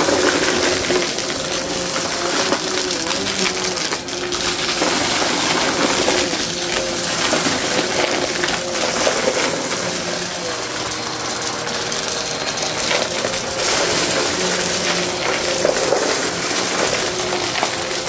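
Vacmaster upright vacuum cleaner running on carpet: a steady motor whine under a continuous crunching rattle of small hard debris being sucked up through the nozzle and hose.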